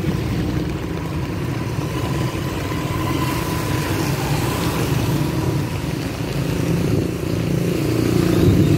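Motorcycle tricycles and cars driving past close by on a wet road, their engines running steadily over the hiss of tyres on wet asphalt; the traffic gets a little louder near the end.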